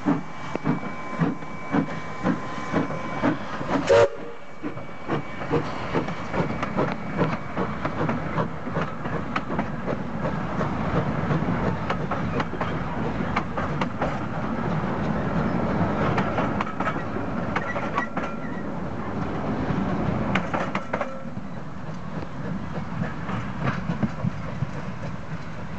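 Steam locomotive pulling away, its exhaust chuffing in regular beats about three every two seconds, with a sharp knock about four seconds in. Then its passenger carriages roll past with wheels clattering over the rail joints, the sound softening near the end as the train moves away.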